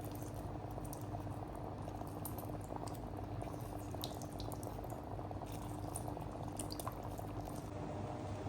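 Water and rice bubbling at a boil in an open pressure cooker, with scattered small pops over a steady low hum.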